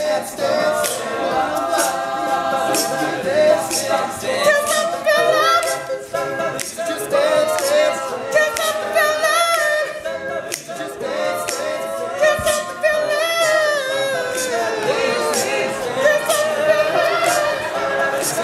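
All-male a cappella group singing in layered harmony, with a steady percussive beat under the voices.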